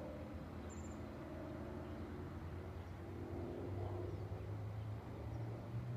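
Distant airplane engine droning steadily, its pitch shifting about halfway through as the plane turns in the sky.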